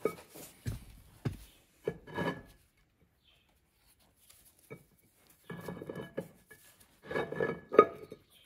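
Heavy metal flywheel handled and offered up onto the crankshaft flange by hand: bouts of metal knocks, clinks and scraping, some knocks ringing briefly. The bouts come at the start, about two seconds in, and again from about five and a half seconds to near the end, with a quiet gap between.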